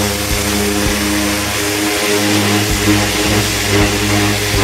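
Greenworks 1700 psi electric pressure washer running: a steady motor and pump hum under the loud hiss of the water jet spraying the trailer's sheet-metal side and the ground.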